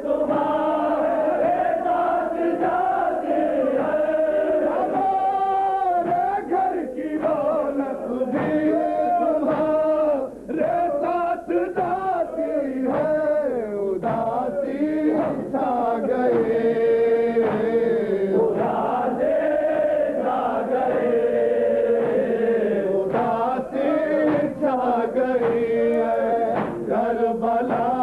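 Urdu noha, a Shia lament, chanted unaccompanied by a male reciter, with a crowd of mourners chanting along in chorus.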